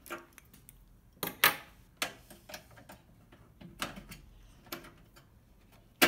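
Scissors snipping through the thin insulated wires of a microwave oven's lamp: a series of about seven sharp, separate snips and clicks, the loudest about a second and a half in.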